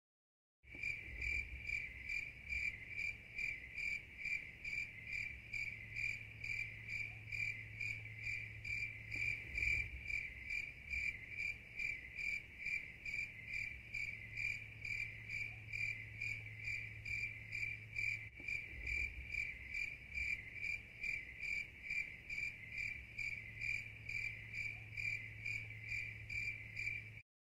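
Crickets chirping in a steady, even rhythm of quick chirps, starting abruptly just under a second in and cutting off abruptly near the end.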